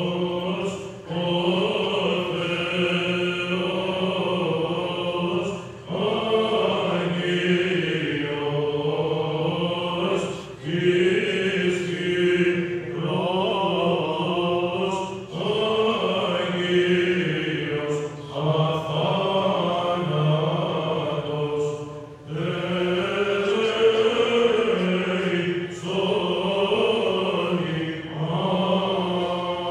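Greek Orthodox liturgical chant: voices singing long phrases over a steady held low note, with short breaks between phrases every few seconds.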